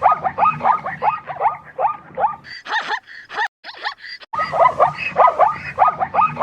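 Zebra barking: a rapid run of short, dog-like yelping calls, about four a second, broken by a pause in the middle before the series resumes.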